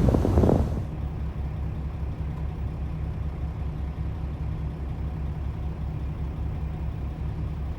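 Car engine running steadily with an even low throb, heard muffled as from inside the car. A louder burst of noise and knocks fills the first second before the throb takes over.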